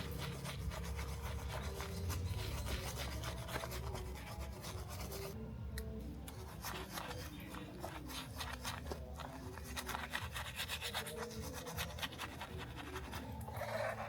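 Quick, repeated rubbing and scraping strokes on a small toy car part being worked by hand, over a low steady hum.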